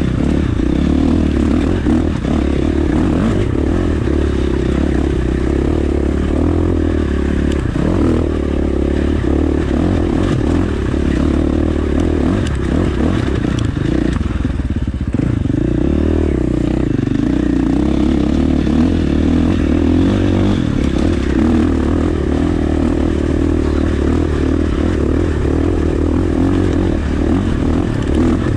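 KTM 450 dirt bike's single-cylinder four-stroke engine running at varying throttle while riding a rocky trail, with rocks clattering under the tyres. The engine note drops briefly about halfway through.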